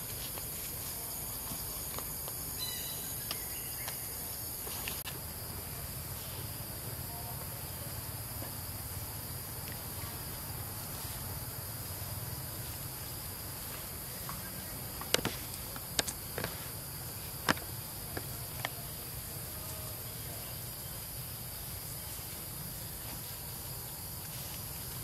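Steady high-pitched drone of insects in the undergrowth, with a handful of short, sharp clicks about two-thirds of the way through.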